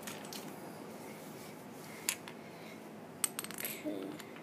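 Small plastic toy building bricks clicking as they are handled and fitted together: a sharp click about two seconds in and a quick run of clicks near the end.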